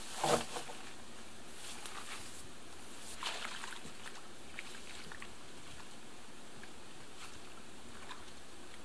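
A wooden dock board set down on a pile of old lumber with a knock about a quarter second in, followed by footsteps swishing through tall wet grass that grow fainter.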